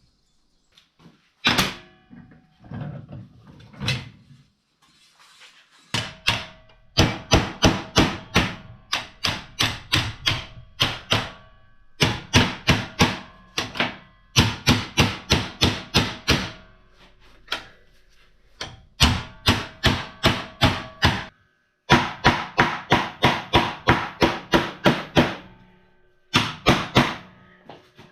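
Rapid metal hammer blows, about three or four a second, in runs of several seconds with short pauses between, each ringing metallically: hammering a damaged aluminum piece back into shape.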